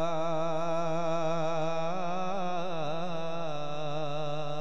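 A man singing a naat, drawing out a long note with a wavering, ornamented pitch that dips and recovers about halfway through, over a steady low drone.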